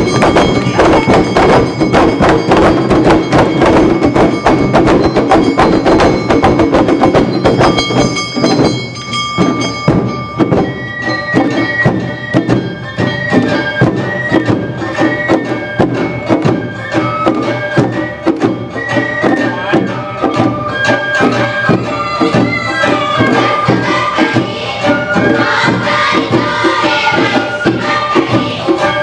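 Awa Odori accompaniment (narimono): a fast, steady beat on drums and a small hand-struck bell (kane). A high bamboo flute (shinobue) melody stands out from about ten seconds in.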